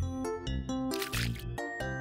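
Background music, a melody of short notes, with a brief hiss about a second in.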